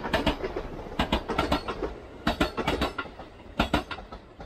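Electric passenger train passing on the tracks, its wheels clicking over the rail joints in quick pairs and clusters over a low rumble. The clatter thins out near the end as the last car goes by.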